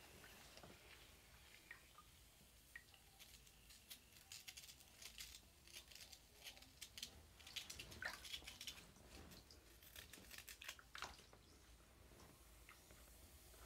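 Faint, scattered wet crackling and squishing of a pink bath bomb being squeezed and turned in wet hands over bath water. The clicks come thickest in the middle seconds.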